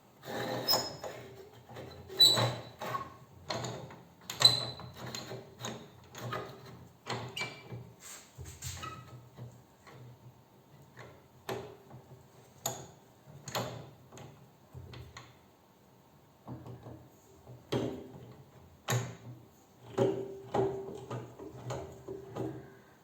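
Irregular knocks, clicks and scrapes of hand work on a motorcycle clutch basket and tools at a workbench, the loudest knocks about two and four seconds in and again near the end, over a faint steady hum.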